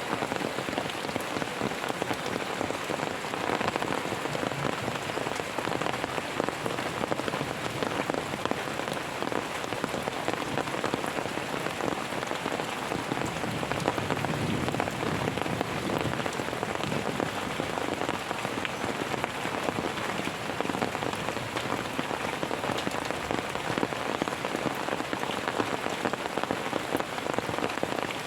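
Steady rain falling on a surface: a dense, even patter of drops with no break and no thunder clap standing out.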